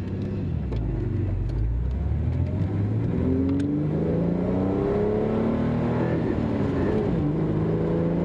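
1996 Mustang's 3.8-litre V6 through a new true dual 2.5-inch exhaust with Flowmaster 50 Series mufflers, heard from inside the cabin while driving. The engine note rises steadily under acceleration for a few seconds, then falls about seven seconds in and holds steady.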